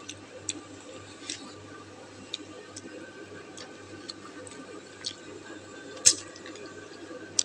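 Scattered small clicks and wet ticks of eating noodles and broth, irregularly spaced, the sharpest one about six seconds in, over a faint steady hum.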